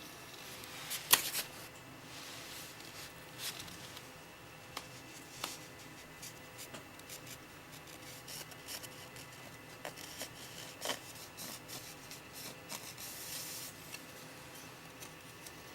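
Handling noises: scattered light clicks and rustles of things being moved by hand, with one sharper click about a second in.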